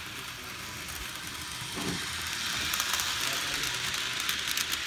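HO scale model trains running on track: a steady whirring of small motors and wheels, with scattered sharp clicks as the wheels cross the rail joints, more of them in the second half.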